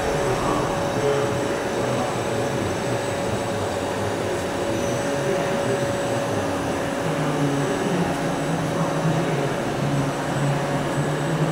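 Hardinge Quest GT27 super-precision CNC gang lathe running under power: a steady mechanical hum with a constant mid-pitched whine. A lower drone comes and goes in the second half.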